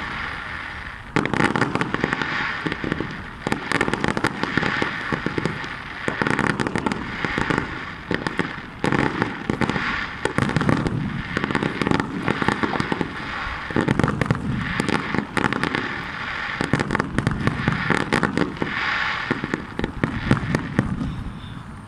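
Fireworks going off in quick succession: a continuous run of sharp bangs and crackling from bursting shells.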